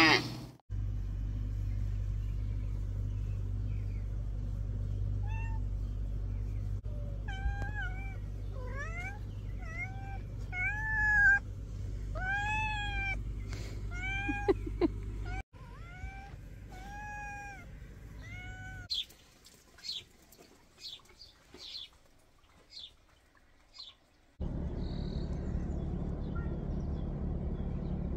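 A gray cat meowing again and again: a run of rising-and-falling calls over a steady low rumble, then fainter short calls. A steady rushing noise sets in near the end.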